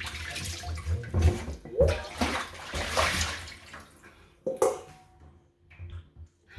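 Water running from a kitchen tap with handling knocks underneath for about four seconds, then dying away to a few short clicks and knocks.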